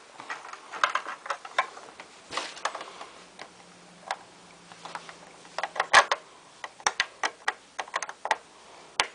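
Plastic Lego pieces clicking and knocking as the toy vehicles are handled and moved about: a string of irregular light taps and clacks, with a sharper cluster about six seconds in.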